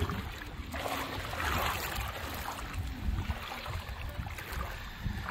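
Shallow sea water sloshing and splashing around the legs of a person wading, with a low wind rumble on the microphone.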